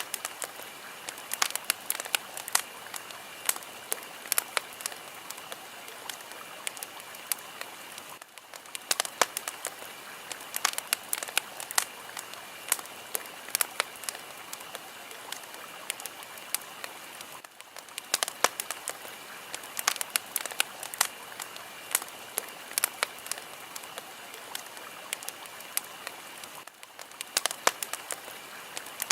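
Fire crackling: a steady hiss with dense, irregular sharp pops and snaps. The loop repeats about every nine seconds, with a brief dip at each seam.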